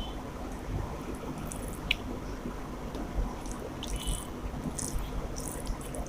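Close-miked eating of rice with chicken curry: soft, wet chewing and squishing, with scattered small clicks.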